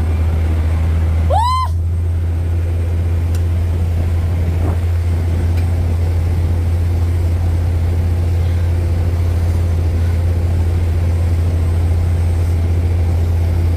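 A boat engine running steadily under way, a deep drone with the rushing wash of the wake. About a second and a half in, a short rising-and-falling high call sounds briefly over it.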